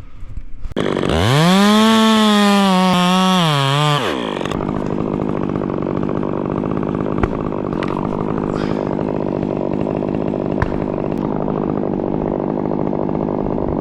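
Stihl chainsaw revved up sharply about a second in, held at high speed with a wavering pitch for about three seconds, then let back down. A steady engine drone carries on after it.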